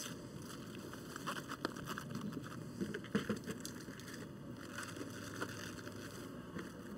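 Faint handling sounds as cabbage wedges are set down into a disposable aluminium foil pan of carrots and potatoes: a few light rustles and taps, over a steady low hiss.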